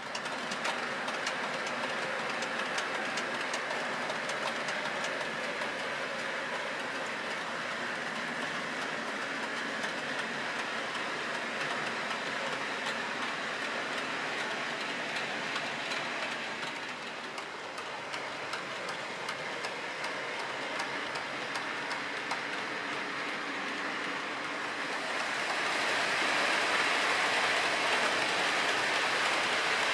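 OO gauge model freight train, a Hornby Class 56 locomotive hauling a rake of wagons, running along the layout track. It makes a steady rolling hiss of wheels on rail, with rapid small clicks over the rail joints, and grows louder and brighter about three-quarters of the way through.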